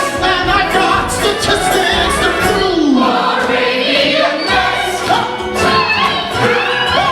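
Background music: a musical-theatre song with a choir singing over a pulsing bass.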